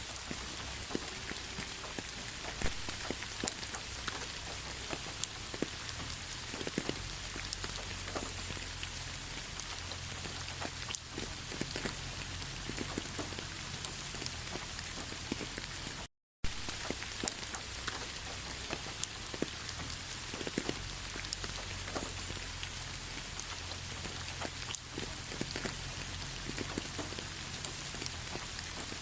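Steady rain falling, with many individual drops tapping on a surface. The sound cuts out completely for a fraction of a second about two-thirds of the way through, then carries on.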